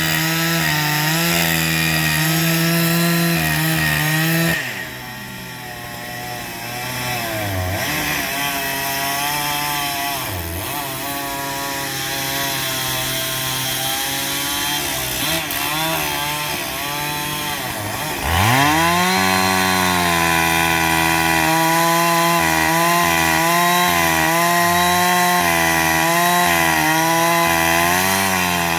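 Two-stroke chainsaw running at high speed, dropping to a lower, wavering pitch about four seconds in, then revving back up to full speed at about eighteen seconds and holding there.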